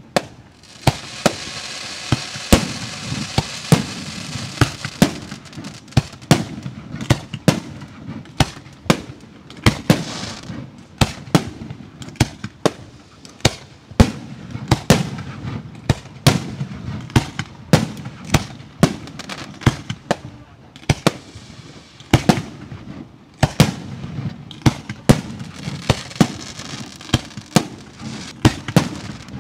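Professional-grade 1.3G aerial fireworks display: a rapid, irregular string of sharp bangs, often several a second, with stretches of dense crackling hiss about a second in and again near the end.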